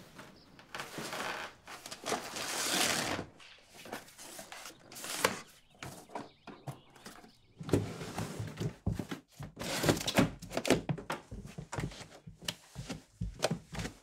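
Vinyl record sleeves being handled and slid about, a long scrape about a second in, then a string of knocks and thunks.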